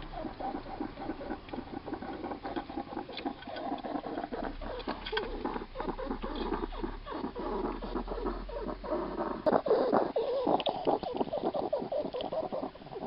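Hedgehog snuffling and eating, with rapid clicking chews and noisy, wheezy breathing that gets loudest about ten seconds in and stops at the very end. The owner puts the noisy breathing down to lung scarring left by an earlier respiratory infection or lungworm.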